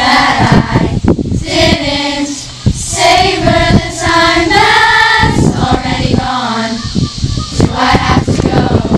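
A large group of girls singing a camp song together without instruments, with short sharp knocks mixed in.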